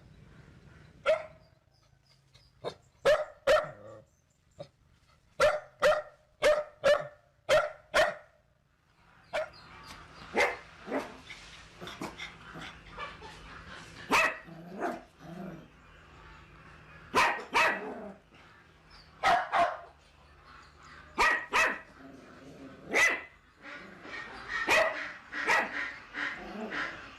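Dog barking repeatedly: sharp single barks and quick runs of two to four, with a background hiss filling in from about a third of the way through while the barking continues.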